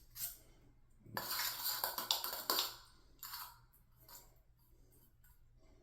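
Hands working with plumbing parts: a crackly rustling burst lasting about a second and a half, with a few short clicks and taps before and after.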